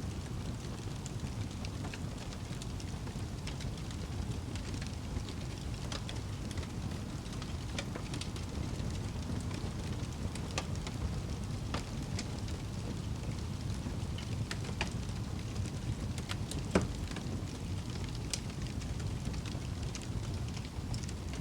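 Fireplace crackling: a steady low rumble with scattered pops and snaps, one louder pop about three quarters of the way through.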